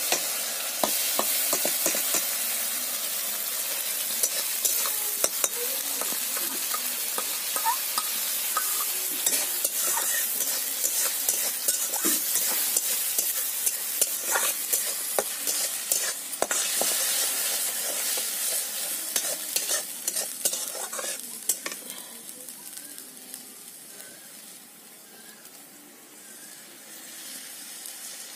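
Yellow spice paste sizzling as it is poured into hot oil in a kadai of frying potatoes and onions, then stirred, the steel spatula scraping and clicking against the pan. The sizzle dies down about twenty seconds in.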